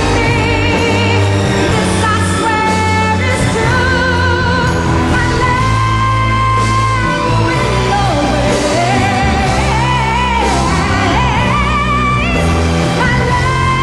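A female singer performing a ballad live over band accompaniment, holding long notes with vibrato and singing melodic runs, with a high note near the end.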